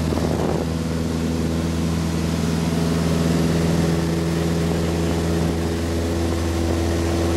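Cessna 152's four-cylinder Lycoming engine and propeller running steadily at takeoff power, heard from inside the cabin during the takeoff roll of a touch-and-go.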